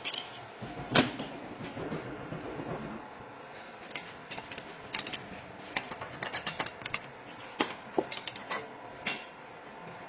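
Metal hand tools and engine parts clinking and tapping during an engine teardown: irregular sharp clicks, with one louder knock about a second in and a busier patter of small clinks later on.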